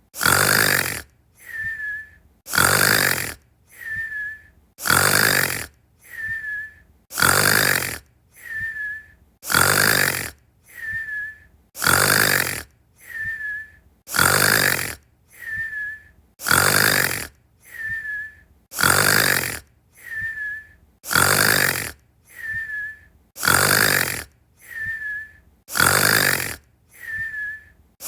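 Snoring in an even cycle about every two and a quarter seconds. Each cycle is a loud rasping snore on the in-breath, then a shorter, quieter out-breath ending in a thin whistle that dips slightly in pitch.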